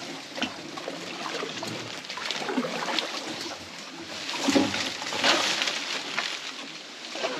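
Water sloshing and splashing around a small boat on a lagoon, with scattered light knocks and splashes; it grows louder about four and a half seconds in.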